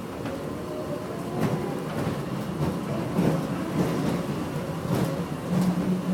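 Airport inter-terminal people-mover train running, heard from inside the car: a steady rumble and rattle with scattered knocks, and a low motor hum that comes up near the end.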